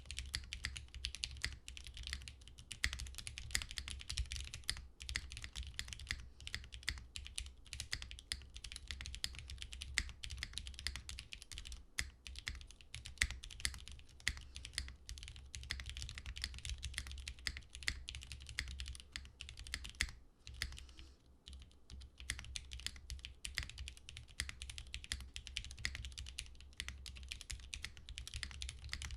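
Typing on a Freyr TKL mechanical keyboard with Cherry MX Black linear switches on a soft UHMWPE plate, with GMK keycaps: a fast, steady stream of keystrokes with a muted thud as the keys bottom out. Typing pauses briefly about two-thirds of the way through, then resumes.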